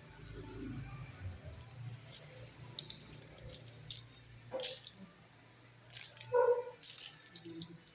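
Scattered light clicks, clinks and rattles of small items and packaging being handled, over a low steady hum, with a brief vocal sound about six and a half seconds in.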